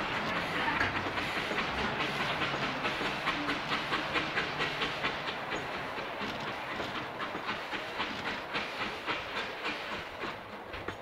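Steam tourist train's passenger carriages rolling past, their wheels clacking over the rail joints in a quick, regular rhythm that fades as the train pulls away.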